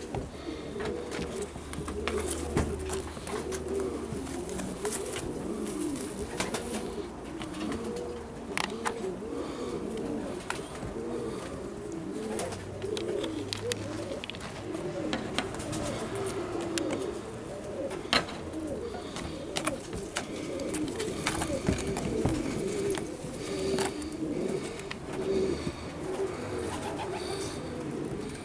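Several magpie pigeons cooing continuously, their rising-and-falling coos overlapping one another, with scattered sharp clicks.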